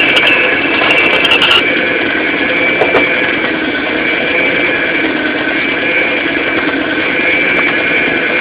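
Electric stand mixer running steadily with its dough hook kneading pizza dough in a stainless steel bowl: an even motor hum and whine. A few light clicks come in the first second and a half.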